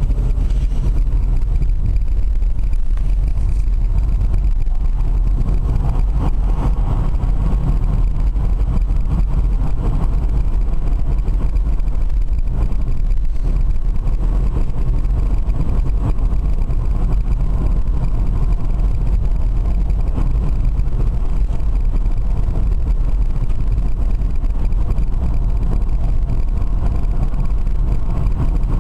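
Steady road and wind noise inside the cabin of a BMW converted to electric drive, cruising at motorway speed: a constant low rumble with no engine note.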